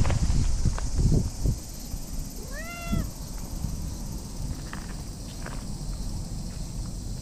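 Orange tabby cat gives one short meow about three seconds in, its pitch rising then falling. A few soft knocks come in the first second and a half.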